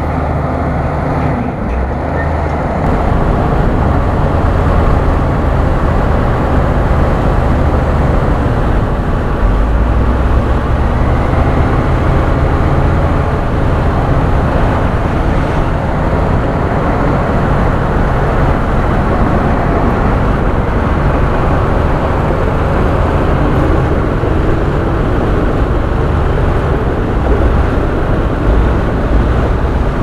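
Bulldozer's diesel engine running steadily, with a deep, continuous drone.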